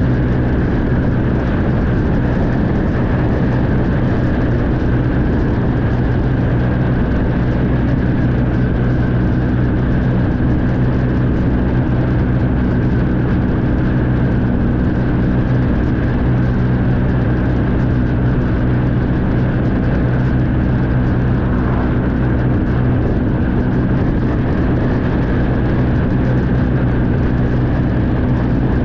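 Honda VFR1200X's V4 engine running at a steady cruising speed, holding one pitch, under steady wind and road noise.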